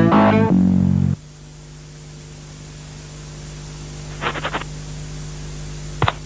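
A pitched, rhythmic music passage cuts off abruptly about a second in, leaving a steady electrical hum and hiss. A quick run of about four short pitched blips comes about four seconds in, and one short blip near the end.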